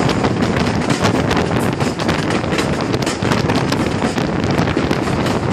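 Heavy wind buffeting on the microphone over the running sound of a British Rail Class 45 diesel locomotive on the move.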